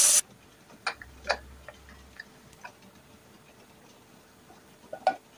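Pressure cooker hissing loudly as steam escapes from its whistle vent, cut off sharply about a quarter of a second in. Then a few light, sharp clicks and taps, most within the next two seconds and two more near the end.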